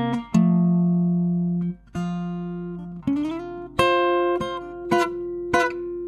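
Segovia FC07 slim cutaway acoustic-electric guitar played fingerstyle, heard as the direct line signal from its Artec preamp pickup rather than a microphone. Plucked notes and chords ring out in turn, with a brief break just before two seconds and a note sliding up about three seconds in.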